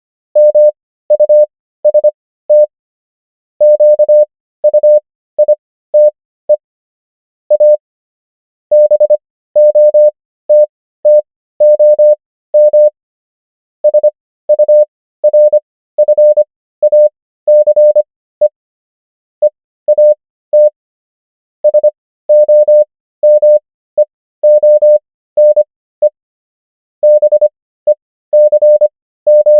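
Morse code practice tone: one steady beep keyed on and off in short dots and longer dashes, characters sent at 25 words per minute with Farnsworth spacing stretching the gaps to 15 words per minute. The beeps come in clusters spelling common English words, with longer pauses between words.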